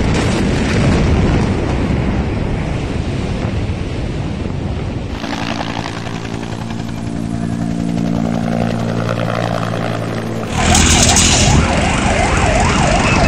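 For the first five seconds, a loud rushing rumble from the explosion's blast. Then a helicopter's rotor chop and engine drone. About ten seconds in, an emergency-vehicle siren starts, wailing rapidly up and down.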